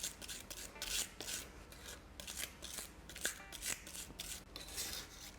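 Knife blade scraping and crushing garlic with salt on a chopping board: repeated rasping strokes, about two or three a second, grinding the clove into a paste.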